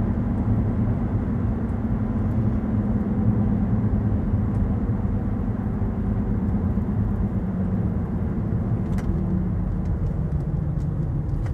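Steady in-cabin driving noise of a 2016 Cadillac Escalade ESV at road speed: a low tyre and road rumble with a constant drone from the drivetrain.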